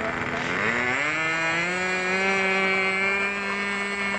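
RC model airplane's engine throttling up: its pitch rises over about the first second and a half, then holds a steady high drone at takeoff power.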